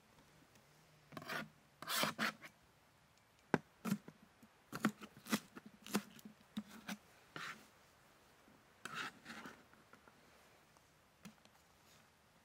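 Irregular scraping and rasping strokes with a few sharp knocks in between, from food being prepared by hand.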